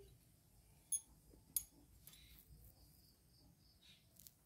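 Two sharp metallic clicks, about a second and a second and a half in, against near silence: a steel pick tapping on a hydraulic gear pump's wear plate as a seal is worked into its groove.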